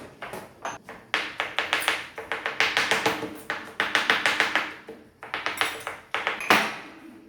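Quick runs of taps and clinks, a kitchen utensil knocking against a bowl or dish several times a second in bursts.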